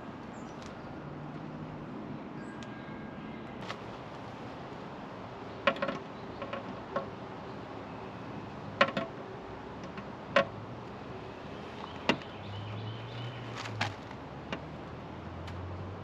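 A handful of sharp plastic clicks and knocks, spread several seconds apart, as a white plastic skimmer faceplate is handled and fitted against an above-ground pool wall, over a steady background hum.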